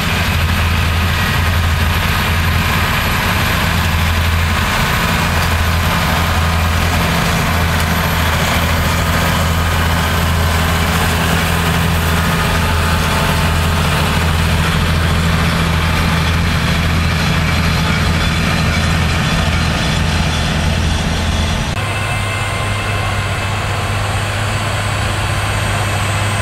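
Claas tractor diesel engines running steadily under load as they pull Lemken harrow and seed drill combinations across a field. Near the end the pitch of the drone shifts abruptly as the sound switches to another tractor.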